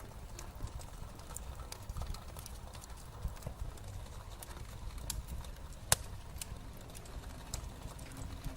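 Irregular light taps and clicks from small craft items being handled on a desk, over a low handling rumble, with one sharp click about six seconds in.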